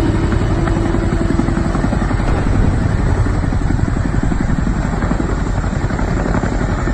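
Boeing CH-47 Chinook (HT-17) heavy-lift helicopter flying, its tandem rotors beating in a fast, steady pulse over the rush of its turbine engines.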